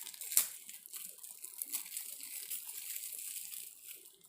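Plastic packaging crinkling and crackling as the sealed wrapper around a small button-cell battery is worked open, with one sharp snap about half a second in.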